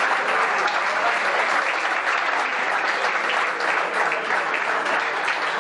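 Audience applauding steadily: many hands clapping together, with an even level throughout.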